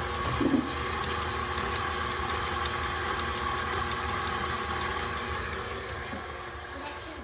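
Electric mixer running steadily at a medium speed, beating butter and sugar, then switched off just before the end.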